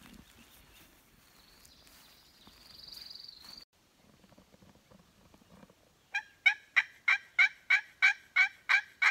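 A turkey call sounding a run of about ten loud, evenly spaced hen yelps, about three a second, starting some six seconds in.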